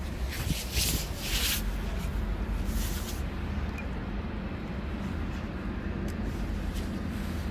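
Rubbing and scuffing handling noise on a handheld phone's microphone, several scuffs in the first three seconds, over a steady low rumble.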